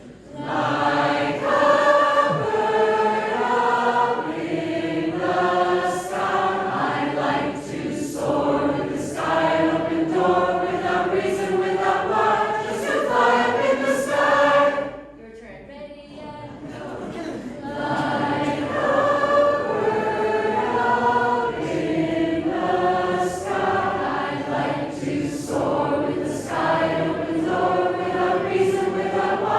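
Choir singing, with a short break about halfway through before the voices come back in.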